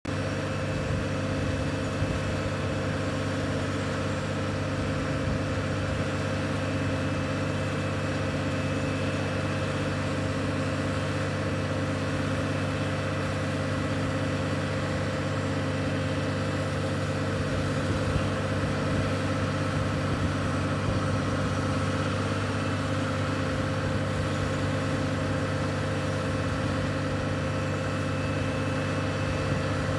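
The Mud Cat MC 275D dredge's 300 hp diesel engine running steadily at a constant pitch, with no revving, as the dredge moves itself across the water.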